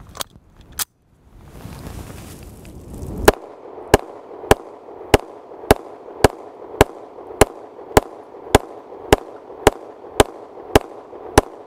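Beretta APX 9mm striker-fired pistol fired at a steady pace, a little under two shots a second, fifteen shots starting about three seconds in. Two sharp clicks come just before, near the start.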